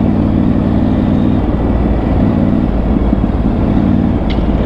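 Triumph Tiger 900 Rally's three-cylinder engine running as the bike is ridden over a rough dirt trail, the engine note fading and returning as the throttle comes on and off. A short sharp knock comes about four seconds in.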